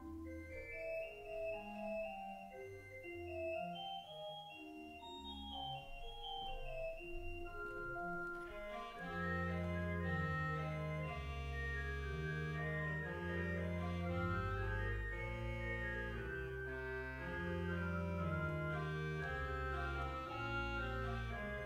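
Church organ playing: for about the first eight seconds a lighter passage of held notes, then a fuller, louder registration enters with deep pedal bass notes under bright chords.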